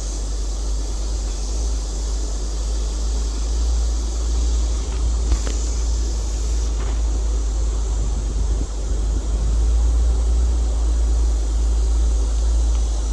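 Vehicle running and driving along, a steady deep rumble with a few faint clicks and rattles.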